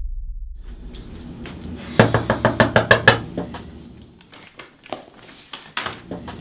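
Rapid knocking on a door: a quick run of about ten sharp knocks about two seconds in, followed by a few scattered taps.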